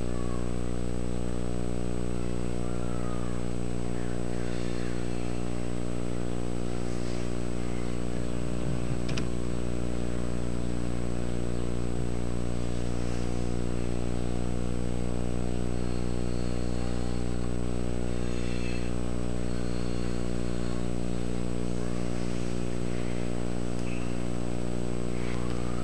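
A steady low hum with many even overtones, unchanging throughout, with a thin high whine above it.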